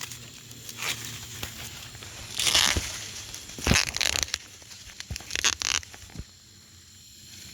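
Corn stalks and leaves rustling and crackling in four short bursts, with a few sharp clicks between them.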